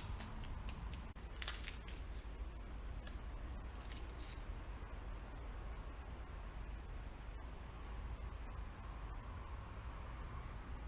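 Crickets chirping steadily, about two chirps a second, over a low background hum. A brief rustle comes about a second and a half in.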